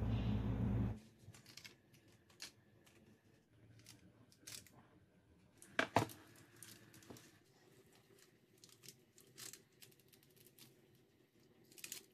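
A low steady hum that cuts off about a second in, then faint scattered clicks and rustles of food and utensil handling, with one sharper click about six seconds in and a short clatter near the end.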